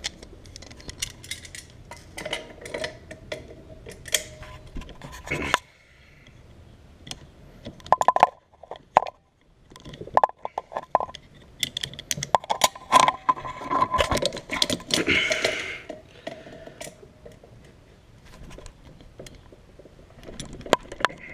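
Metal hand tools clinking and clattering as they are handled, a run of sharp metallic clinks with a quieter lull about six seconds in.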